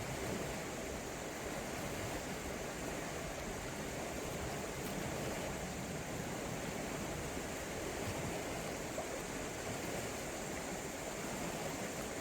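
River water running steadily, an even rushing without breaks.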